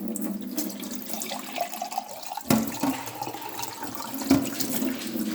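Kitchen tap running into the sink while a wine glass is washed, with two sharp knocks, about two and a half and four seconds in.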